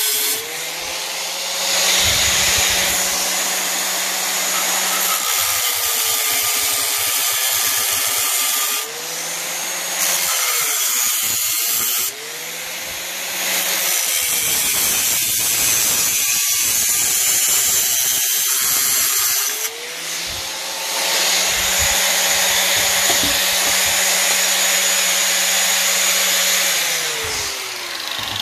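Angle grinder with a cut-off wheel cutting through a rusted steel exhaust pipe to free an old muffler, with a loud gritty grinding hiss. The motor's whine keeps dipping and rising in pitch as the wheel is pressed into the metal and eased off. It breaks off briefly about halfway through, then runs again and winds down near the end.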